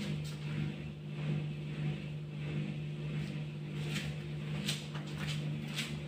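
Hisense dishwasher's drain pump running with a steady hum, pumping out the wash water in the last minute of the cycle. A few light clicks come in the later seconds.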